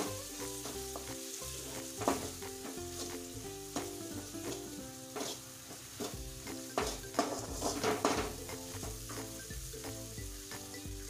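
Onion, tomato and spice masala sizzling in hot oil in a metal kadhai while a metal spatula stirs and scrapes it around the pan. The sharper scrapes come around two, five, and seven to eight seconds in.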